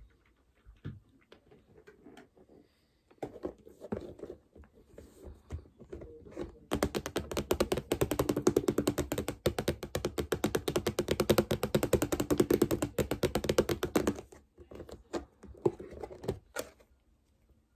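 Long fingernails tapping rapidly on the hard lid of a plastic storage box: a fast, even run of clicks lasting about seven seconds. Softer handling and scattered taps on the plastic come before and after it.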